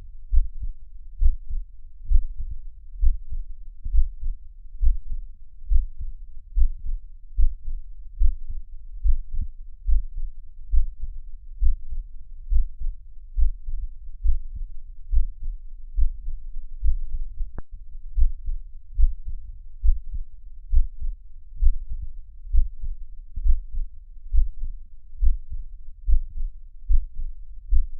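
Recorded heartbeat, a steady rhythm of deep double beats (lub-dub) at a little over one beat a second. A single brief click about two thirds of the way through.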